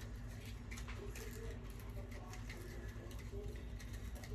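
Light clicks and rustles of small packaged items being handled, over a low steady hum.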